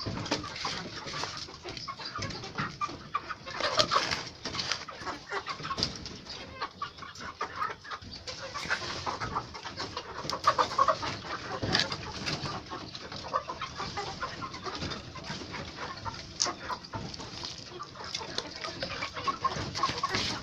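A flock of chickens clucking and calling, with many short overlapping calls throughout.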